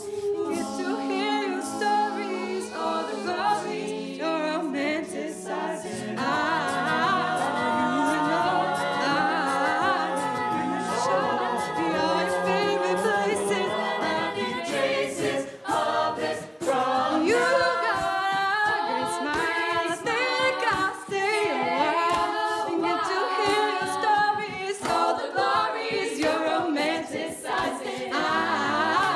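Mixed-voice a cappella group singing in close harmony through microphones, with a woman singing lead over the backing voices and beatboxed vocal percussion keeping a steady beat.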